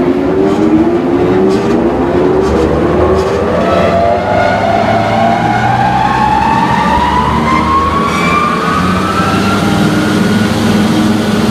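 Norton Type-S bench grinder, a 20-horsepower three-phase motor driving 30-inch wheels, spinning up from a start. Its whine rises steadily in pitch for about ten seconds and levels off near the end over a steady low hum.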